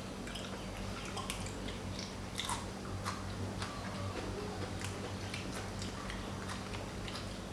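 A person chewing seafood salad close to the microphone, with many small irregular wet clicks and mouth smacks over a steady low hum.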